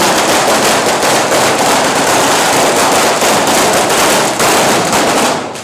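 Correfoc fireworks going off in a dense, rapid crackle of firecracker reports mixed with the spray of sparks, with a brief break near the end.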